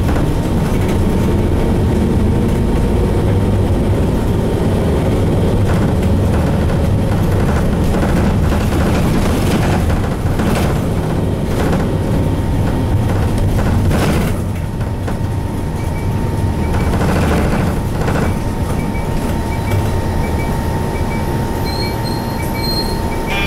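Hino M10U inline-six diesel of a 1997 Hino Blue Ribbon HT route bus running under way, heard from inside the cabin with road noise. There are a few sharp knocks and rattles from the body around the middle.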